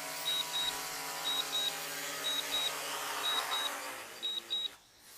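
DJI Mavic 3 propellers humming as the drone descends and touches down, then spinning down and stopping near the end. Over the hum, a pair of short high beeps repeats about once a second: the auto-landing alert.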